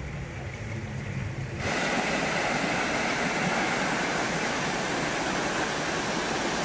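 Shallow river rapids running over rocks: a steady rushing of water. It is quieter at first and becomes louder and brighter about a second and a half in.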